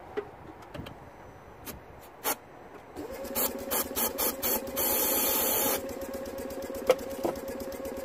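Aerosol starting fluid hissing into the air intake in short bursts and then one longer blast, while the Smart Fortwo's 1.0-litre three-cylinder petrol engine cranks steadily on the starter from about three seconds in without catching. It is a crank-no-start that starting fluid does not cure, which the mechanic puts down to a spark fault.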